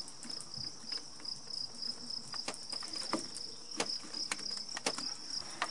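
Crickets trilling steadily, with half a dozen sharp clicks and knocks in the second half as the fuel rail is pressed down to seat the fuel injectors in the engine.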